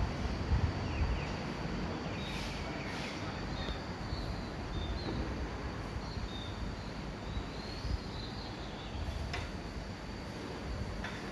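Outdoor ambience: a low rumbling noise with a thin, steady high whine over it, a few short chirps and two or three brief clicks near the end.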